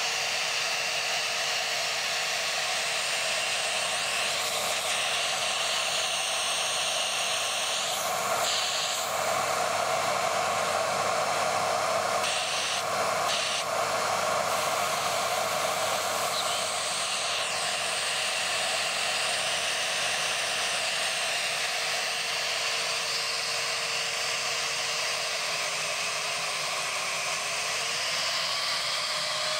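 Siemens Green Power Edition vacuum cleaner running with its hose sealed off by a vacuum gauge, so it can't get air and its motor is screaming: a steady whine over rushing air. Near the end the pitch dips briefly, then rises as the suction on the gauge climbs.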